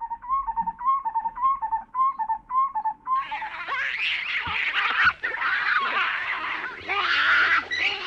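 A call repeated evenly about twice a second for the first three seconds. Then a troop of chacma baboons breaks into a loud clamour of overlapping shrill screams and chatter.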